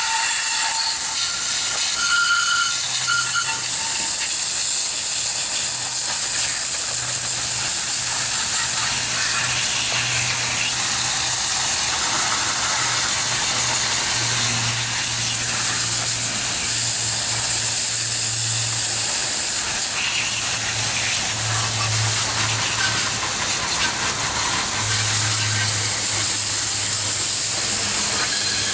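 Steady hiss of a water spray rinsing degreaser off an engine, with a low hum coming and going underneath.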